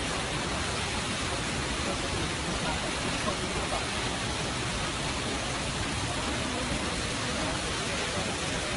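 Stream water rushing steadily, an even noise with no breaks or rhythm.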